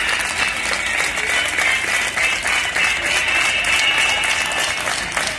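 Applause: a large group of people clapping their hands steadily, a dense, continuous patter.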